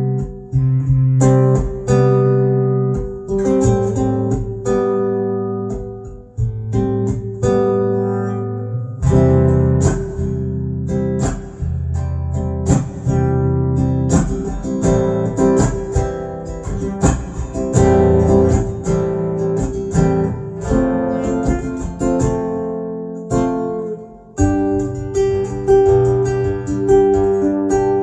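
Yamaha SLG200N nylon-string silent guitar played, chords plucked and strummed one after another, each left to ring out.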